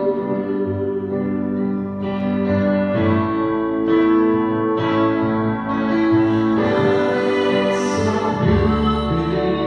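Guitar playing held chords that change about once a second, an instrumental passage of a worship song.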